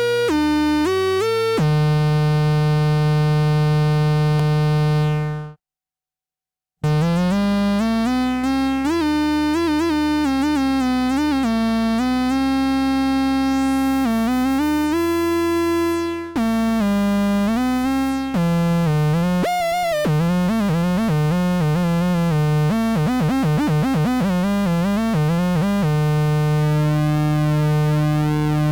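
Dreadbox Hades Reissue analog synthesizer playing buzzy, harmonics-rich notes, held and stepping in pitch with sliding glides between some notes. The sound cuts out completely for about a second around six seconds in, and a fast wavering pitch wobble comes in from about twenty seconds in before a steady held note returns.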